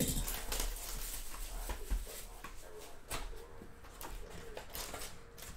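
A sealed trading-card hobby box being opened by hand: the wrapper and cardboard crinkle and tear in quick, irregular rustles.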